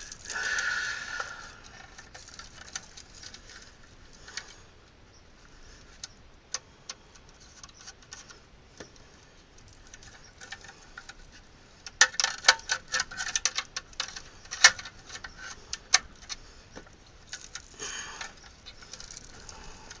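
Hands working on a small sheet-metal electrical box and its wiring: scattered metallic clicks and light rattles, with a soft rustle in the first second. A dense run of sharp clicks comes about twelve seconds in, and more near the end.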